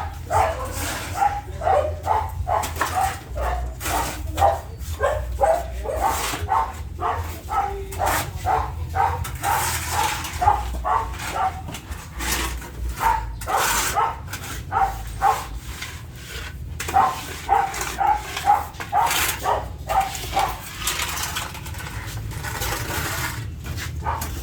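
Dogs barking in quick repeated runs of about two to three barks a second, over a steady low hum. The barking breaks off briefly about halfway through and again near the end.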